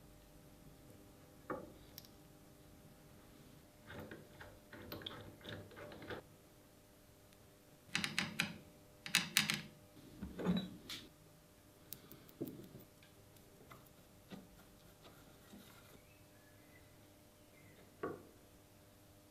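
Steel parts of a metal shear being handled: a blade and jaw plate knocked and clinked against the shear's frame and the wooden bench. The knocks come singly and in short clattering runs, busiest in two groups in the middle, with one more knock near the end.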